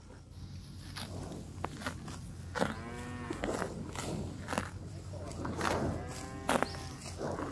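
Zebu-type cattle grazing close up: a run of crisp clicks and rips as grass is torn and chewed. A cow moos once about two and a half seconds in, and gives a shorter moo a little after six seconds.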